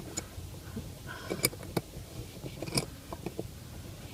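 Scattered light clicks and taps as a hand clamp and an aluminium pedal cover are handled on a car's accelerator pedal, with a few sharper clicks among them.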